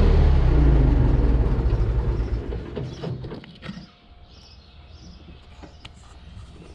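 New Holland L775 skid steer engine running down: its pitch falls and it fades out over about three seconds. A few clicks and knocks follow.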